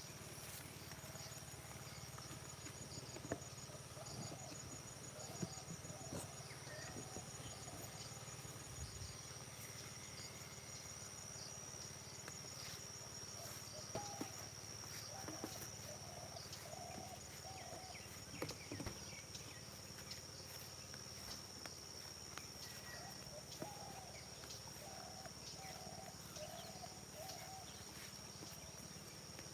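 Faint field ambience: crickets trilling steadily and high-pitched, with a bird calling in runs of four or five short notes twice and scattered faint clicks.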